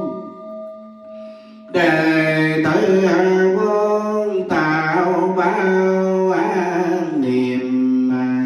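Melodic Vietnamese Buddhist chant, sung in long held notes over instrumental accompaniment. It is softer for the first second and a half, on a single held tone, before the voice and music come back in fully.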